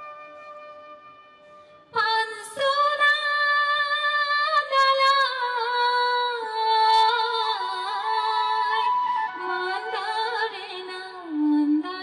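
Rabha folk music. A flute plays a quiet melody, then about two seconds in a woman starts singing into a microphone and the music gets much louder, the flute carrying on beneath her voice.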